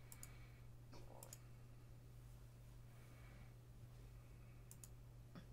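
Near silence: a steady low hum with a few faint, sharp clicks, some in quick pairs.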